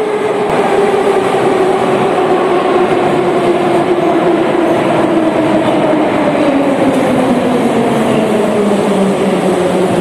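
Metro train pulling into an underground station and braking to a stop, its rumble joined by a whine that falls steadily in pitch as it slows.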